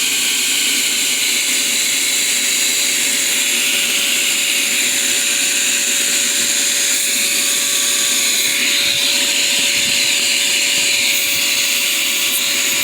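Beetle Vac 1000 hive-beetle vacuum running steadily, its motor holding one pitch, as it sucks small hive beetles off the hive.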